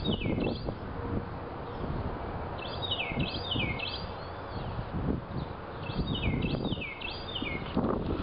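A songbird singing three short phrases of repeated sweeping notes, over gusty wind rumbling on the microphone.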